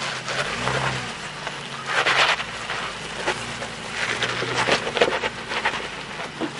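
Isuzu Amigo SUV's engine running low and steady under load as it crawls up a steep rock slope. A loud rushing hiss with uneven surges lies over the engine and is the loudest part.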